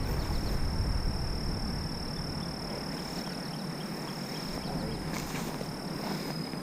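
Insects trilling in one steady, high-pitched drone, over a low rumbling noise.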